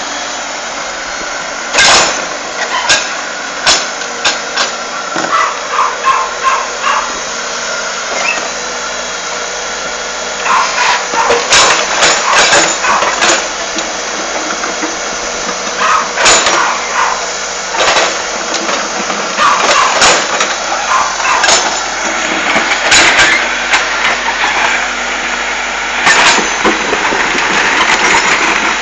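Backhoe loader's engine running steadily, with repeated sharp clanks and knocks from the bucket and arm as it works through piled-up earth and rubble.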